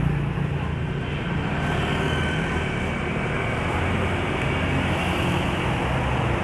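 Motorcycle traffic on a town road: a steady engine hum with the noise of passing scooters and motorbikes.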